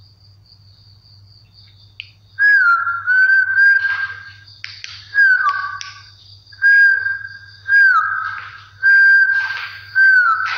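A high whistled note, repeated about eight times from about two seconds in. Each note lasts about a second, dips briefly in pitch at its start and leaves an echoing tail. A faint steady cricket chirr runs beneath.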